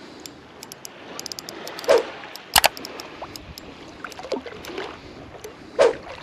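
Small hooked trevally splashing at the surface of shallow water as it is played close in on light spinning gear. Sharp splashes come about two seconds in, again half a second later, and near the end, with faint scattered ticking and the water lapping between them.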